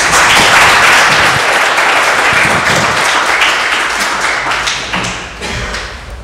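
Audience applauding, the clapping holding steady and then dying away near the end.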